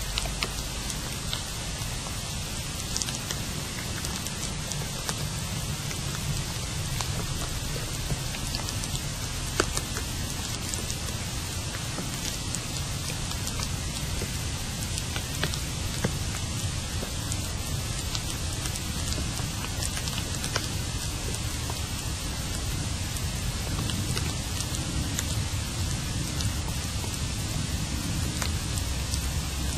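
Steady hiss with a low rumble underneath and scattered faint clicks. It is the amplified output of an underground listening device monitoring the ground for tunnel activity.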